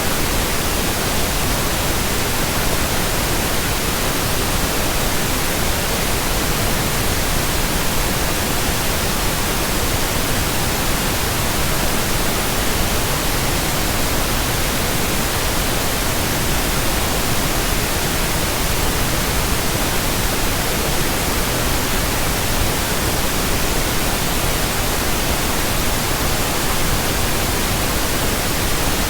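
Steady pink noise: an even, unchanging hiss spread across the whole range of pitch, with no breaks or changes.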